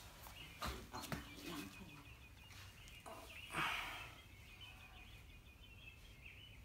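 Fish being handled and hung on a digital hand scale: a few light knocks and clicks, then a louder rustle about three and a half seconds in.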